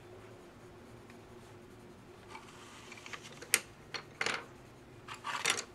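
Colored pencil scratching across paper in short shading strokes, starting about two seconds in, with several sharper strokes in the second half.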